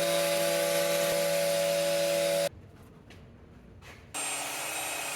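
A power tool running in two bursts: a steady hissing whine for nearly three seconds that cuts off suddenly, then a second, shorter run about four seconds in at a lower pitch.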